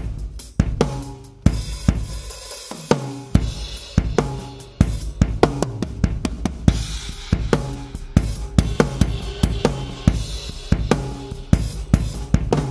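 Drum kit with a clear acrylic bass drum played in a groove: bass drum, snare and cymbals struck in quick succession. It is picked up through the Yamaha EAD10's built-in microphone.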